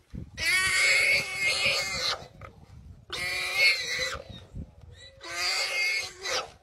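A warthog screaming in distress as a pack of African wild dogs bites into it: three long, harsh, high squeals, the first lasting nearly two seconds and the others about a second each, with short gaps between them.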